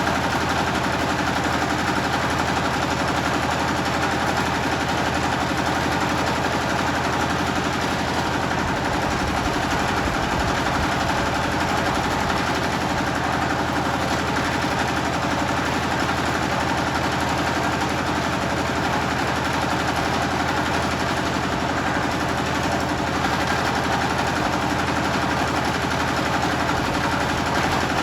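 Generator engine running steadily, its exhaust a rapid, even chugging with no change in speed.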